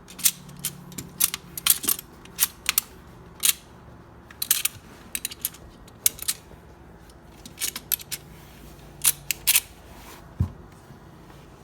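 Plastic magnetic toy blocks snapping and clacking together as they are joined and handled: about twenty sharp, irregular clicks.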